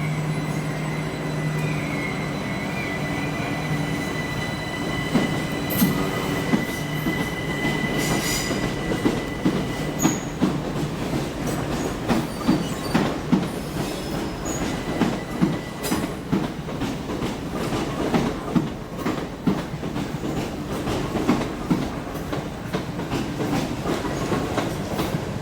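Passenger train moving through the station: a high, steady wheel squeal for the first several seconds, then the repeated clatter of its wheels over rail joints.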